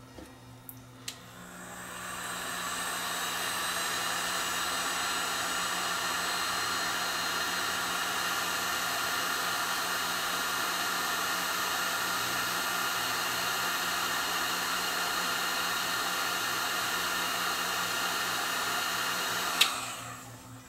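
Electric heat gun blowing steadily while shrinking heat-shrink tubing onto a battery cell's terminal tab. It clicks on about a second in, its fan spins up over a couple of seconds, and it cuts off with a click shortly before the end.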